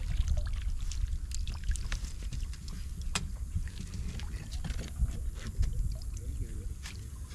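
Wind buffeting the microphone as a steady low rumble, with scattered short sharp clicks and small splashes while a hooked fish is played on a pole rod and scooped into a landing net.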